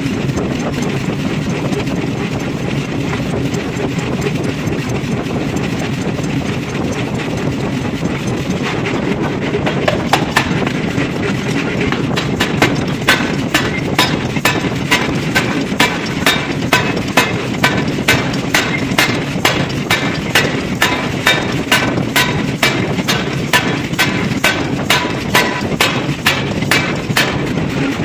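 Heavy forging machinery running with a steady drone. From about twelve seconds in, sharp ringing metal clanks come about twice a second.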